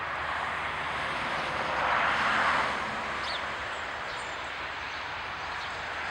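Outdoor ambience: a steady rushing noise that swells briefly about two seconds in, with a few faint, high bird chirps above it.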